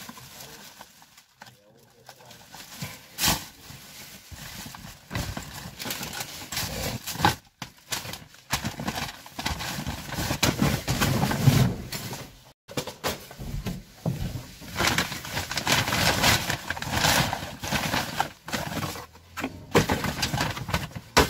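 Plastic bags, wrapping and cardboard boxes rustling, crinkling and knocking as gloved hands rummage through a rubbish container, in irregular bursts that are busiest in the second half.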